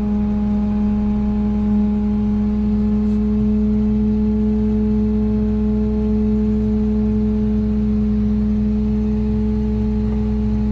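Self-propelled sprayer's engine running steadily at low speed, heard from inside the cab as a constant, even hum that doesn't change pitch as the machine creeps forward.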